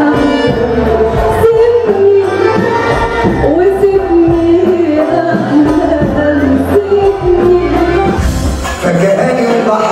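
A woman singing live through a microphone, backed by an orchestra of violins and keyboard, amplified over a steady low beat.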